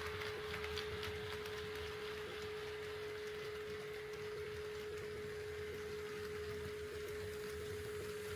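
HO-scale model train running on the layout, with a steady single-pitched whine held throughout over a low rumble.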